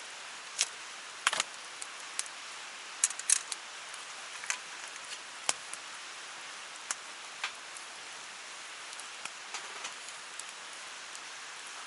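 Steady hiss of water with scattered sharp ticks and clicks, a few of them louder, clustered about a second in and about three seconds in.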